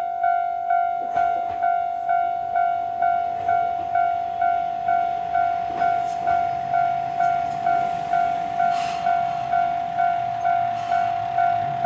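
Japanese level-crossing electronic alarm bell ringing steadily at about two strokes a second. Under it a low engine hum grows from about a third of the way in, as an Isumi 350-series diesel railcar approaches the crossing.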